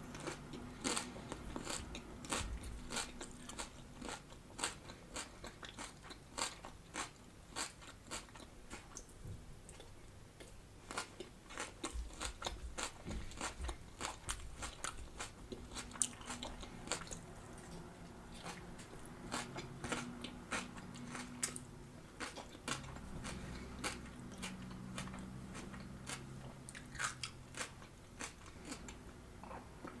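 Close-miked chewing of a crunchy raw salad of iceberg lettuce and red cabbage: many sharp, irregular crunches and crackles, coming in denser runs between quieter stretches.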